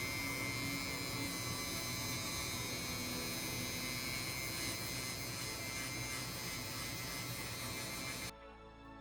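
A small electric motor-driven tool runs steadily with a buzzing hum, then cuts off abruptly about eight seconds in.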